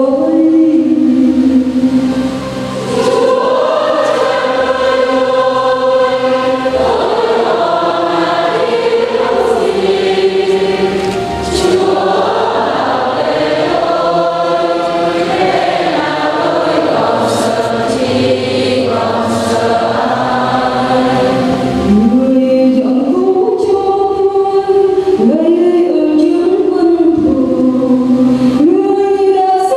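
Church choir singing a hymn in Vietnamese, with several voices holding and moving through sung notes.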